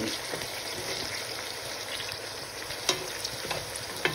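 Veal shanks with onion and spices frying in oil in a pot: a steady sizzle with a few faint crackles, as the meat is browned before any water goes in.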